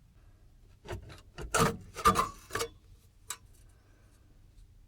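A few short rubbing and scraping strokes of hand tools on a power supply's casing as it is being opened, then a single click a little after the middle.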